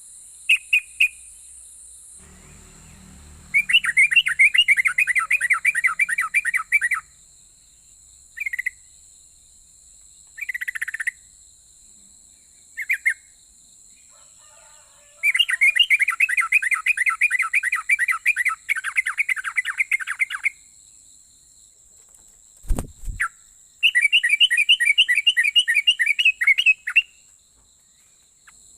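Sooty-headed bulbul singing: three long phrases of fast, rhythmically repeated notes lasting a few seconds each, with short single calls in between. There is a single low thump shortly before the last phrase, and a faint steady high whine underneath.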